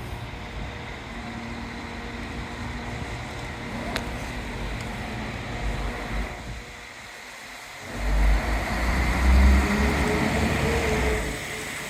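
Train on the railway in heavy rain, with steady rain noise throughout; a loud low rumble rises about eight seconds in and a steady tone comes in near the end.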